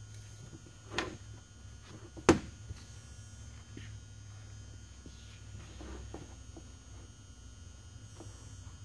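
Handling of a hand-held pressure-vacuum pump tester and fuel line on a metal workbench: a click about a second in and a sharper, louder click a little after two seconds, with a steady low hum throughout.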